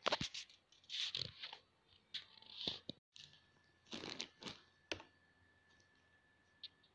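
Dosa torn by hand and a piece dragged through thick curry-leaf chutney on a stainless steel plate: several short, crackly tearing and scraping sounds, a second or so apart.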